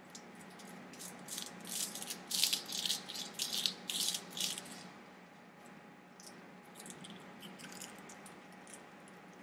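Shell of a hard-boiled egg crackling as the egg is rolled under a palm on a paper towel over a countertop: a run of quick, crisp crackles. About halfway through it turns to fainter, scattered crackles as the cracked shell is peeled away.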